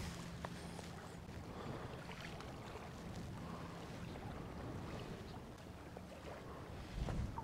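Shallow water sloshing softly around a wade fisherman's legs, with a low rumble of wind on the microphone and a slightly louder slosh near the end.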